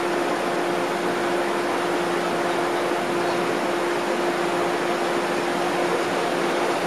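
A stopped trolley car's onboard equipment running with a steady hum and one constant tone over an even whir.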